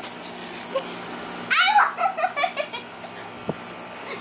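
A person laughing: a high cry that slides down in pitch about one and a half seconds in, then a run of short laughing notes.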